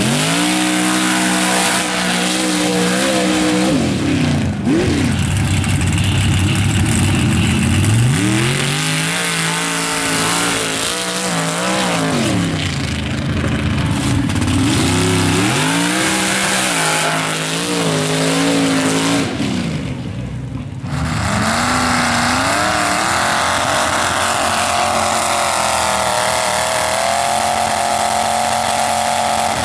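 Mud-racing trucks' engines revving hard through a mud pit, the pitch climbing and falling again every few seconds as the throttle is worked. About two-thirds of the way in there is a brief break, then an engine holds a steadier, higher note.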